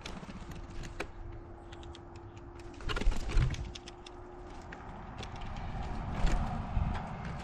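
Blue jays feeding on peanuts on a wooden platform feeder: scattered sharp clicks and taps of beaks and feet on the nuts and the wooden tray. About three seconds in there is a louder flurry of wingbeats and knocks as a jay lands close by, and another knock comes near the end.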